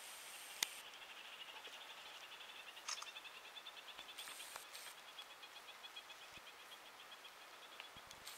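A faint, rapid, high-pitched pulsing trill, insect-like, that starts about a second in and keeps going, with a few sharp clicks.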